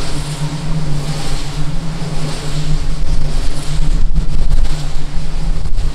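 Strong wind buffeting the camera's microphone: a loud, rumbling rush of noise that comes in gusts and grows louder after about four seconds.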